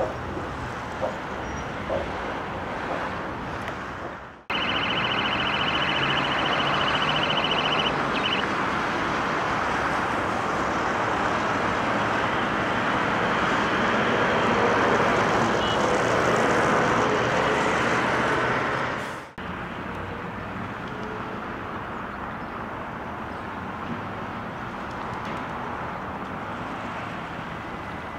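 Outdoor street ambience with a steady hum of traffic, which cuts abruptly and comes back louder about four seconds in, then drops back near the end of the middle stretch. A high, steady tone sounds for about four seconds at the start of the louder part.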